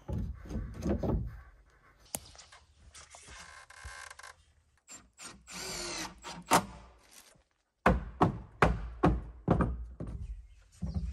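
Work on a wooden shed kit: knocks and thumps on wood at the start, a cordless drill running and rising in pitch as it drives screws in the middle, then a quick run of sharp knocks, about three a second, near the end.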